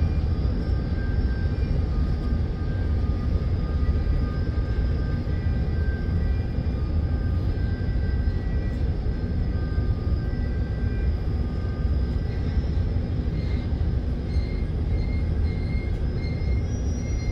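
Steady low rumble of a ship's running machinery, even in level throughout, with faint thin tones above it.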